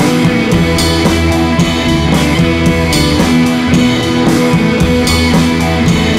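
Background rock music with guitar and drums, keeping a steady beat.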